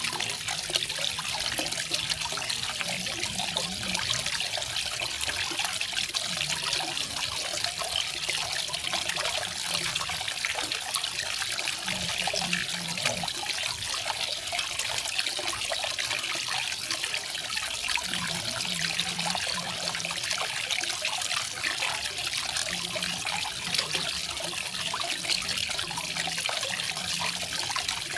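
Small garden waterfall, water splashing and trickling steadily with a hiss that sits mostly in the high range.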